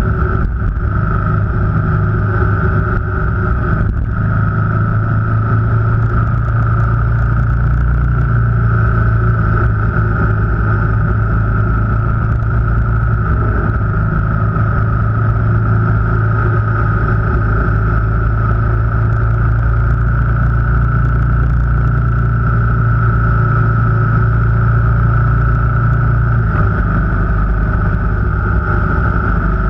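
Car engine running steadily while driving, with road noise; the engine note shifts near the end.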